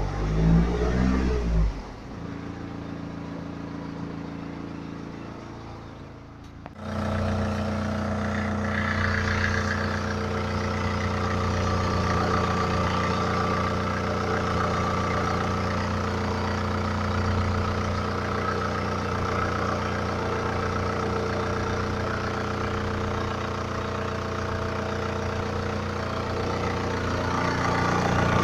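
BMW N47 two-litre four-cylinder diesel idling cold, filmed to check for timing chain rattle, which the owner is unsure is present. There is a loud, uneven low rumble in the first two seconds, and about seven seconds in, after a brief dip, the engine sound jumps louder and then stays steady.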